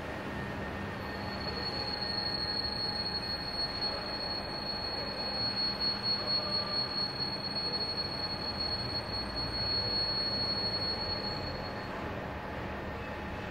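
Electric headlight-restoration vapor cup running while its vapor is played over a headlight: a steady hiss with a thin, steady high-pitched whistle that starts about a second in and stops shortly before the end.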